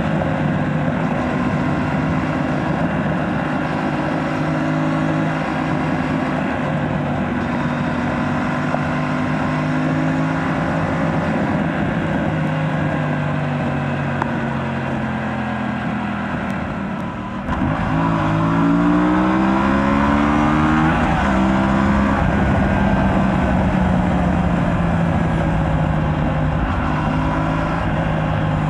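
Aprilia RS 457's parallel-twin engine on its stock exhaust, ridden at a steady engine note. About seventeen seconds in it goes briefly quieter, then the revs climb sharply several times in quick succession under hard acceleration before settling back to a steady run.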